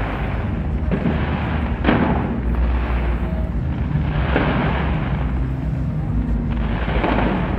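A large fireworks display going off in rapid succession: a continuous rumble of bangs and crackling, with the sharpest bang about two seconds in.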